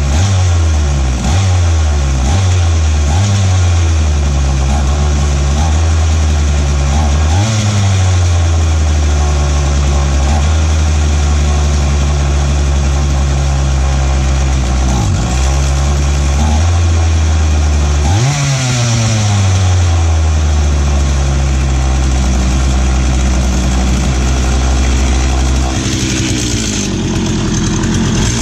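McCulloch Mac 3516 45 cc two-stroke chainsaw running on the bench after a carb and fuel-line rebuild: a string of quick throttle blips at first, then mostly steady running with a few short revs, dropping in pitch near the end before revving up again.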